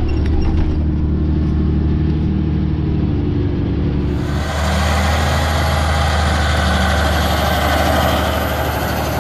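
Fendt 1167 Vario MT track tractor's engine running steadily under load while pulling a subsoiling ripper: a low, even drone as heard inside the cab, then, about four seconds in, the same tractor heard from outside with a loud hiss over the engine.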